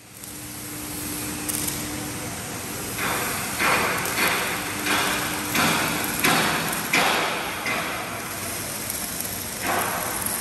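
Factory-hall noise: a steady machine hum with a low tone, then a run of eight sharp knocks about two-thirds of a second apart starting about three seconds in, and one more near the end.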